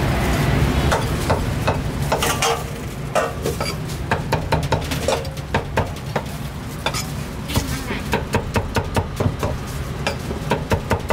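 Metal cooking utensils clattering and clicking against a pan in quick, uneven strokes, over a steady low rumble and background voices.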